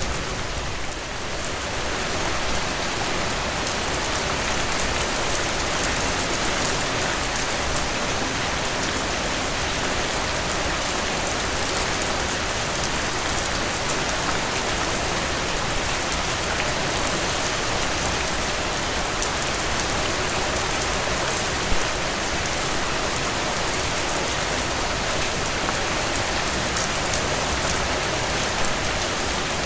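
Steady, even rainfall: a dense patter of drops, with one slightly louder drop about two-thirds of the way through.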